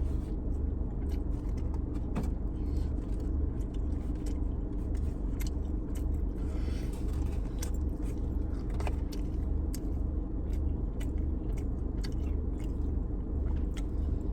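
Steady low rumble of a running car heard from inside, with scattered small clicks and scrapes from eating out of a takeout container.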